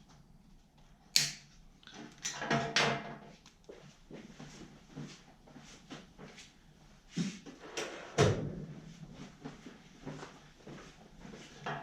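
Diagonal cutters in use and the grinder's packaging being handled: scattered sharp clicks and knocks, the loudest about a second in and about eight seconds in, with softer rustle and clatter between.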